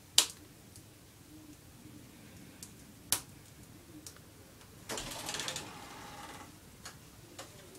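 Two sharp clicks about three seconds apart, then about a second and a half of rustling, with a few faint ticks in between.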